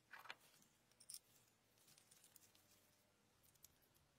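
Faint handling sounds of a small chrome pencil-sharpener part being picked up and worked in gloved hands. There is a short scrape just after the start, a light click about a second in, and a few soft ticks later.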